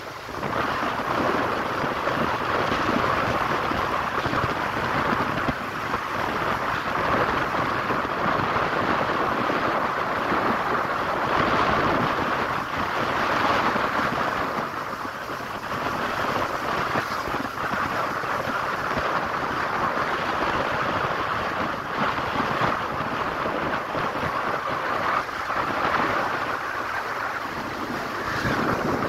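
Wind rushing over the microphone of a moving motorcycle, a steady loud rush with the vehicle's road noise underneath.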